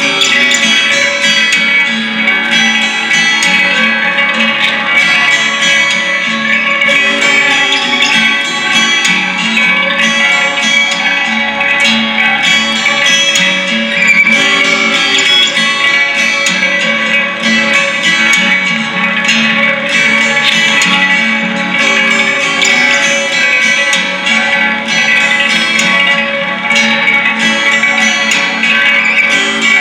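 Live music on a plucked and strummed guitar, playing continuously in a dense, sustained texture.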